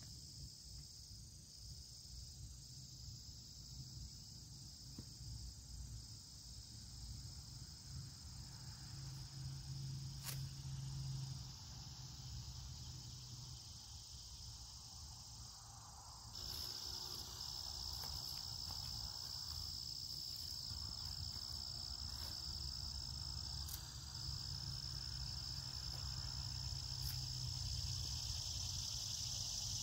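Steady high-pitched trilling of crickets, growing louder about halfway through, with a few faint sharp clicks.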